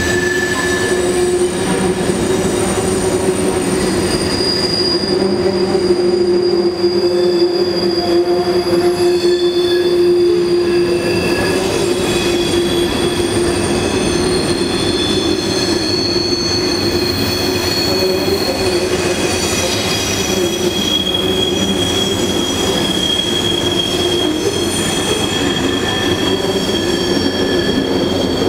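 Canadian Pacific freight cars rolling across a steel trestle bridge: a steady rumble with high wheel squeals that come and go, each holding for several seconds.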